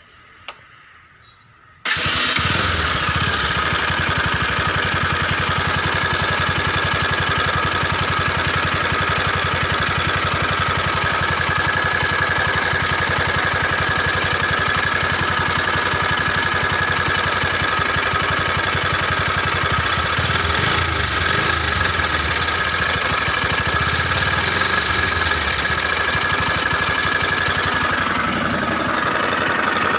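A single click, then a Bajaj Pulsar NS200's single-cylinder engine starts suddenly about two seconds in and settles into a steady idle, with a steady high-pitched whine over its note. The engine is run to show a noise that its owner takes for a problem.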